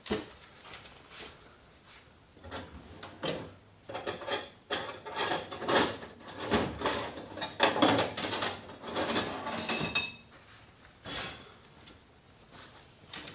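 Hand file rasping over a freshly cut edge in a run of irregular strokes, filing it down smooth. The strokes run through the middle and stop near the end.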